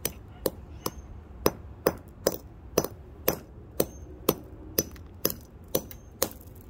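Hammer striking an amethyst crystal over and over, crushing it into fragments and powder: sharp blows about two a second, some with a short high ring.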